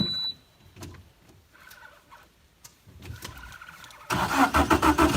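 Boat motor being started: a few faint clicks and knocks, then about four seconds in it cranks loudly with rapid even pulses and catches just at the end.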